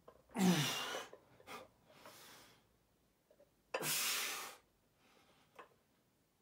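A man's forceful, strained breathing while curling a heavy dumbbell. There is a loud voiced exhale, like a grunt, about half a second in and a sharp hard breath out about four seconds in, with quieter breaths between.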